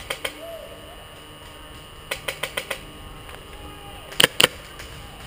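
Airsoft guns firing: a couple of quick shots at the very start, a rapid string of about five shots around two seconds in, then two louder, sharper shots close together near the end.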